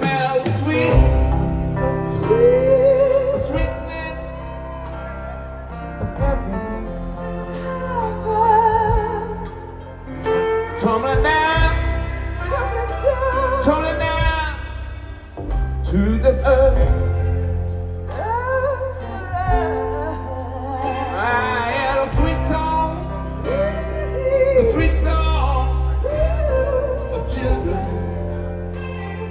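Live rock band playing a slow ballad, with a singer's long, sliding vocal runs with heavy vibrato over a steady low bass.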